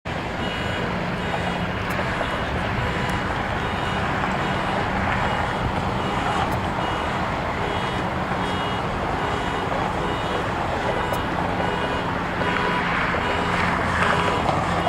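Boeing 757-300 jet engines running, a steady rushing noise with a low hum and faint high whining tones that come and go, growing slightly louder about 12 seconds in.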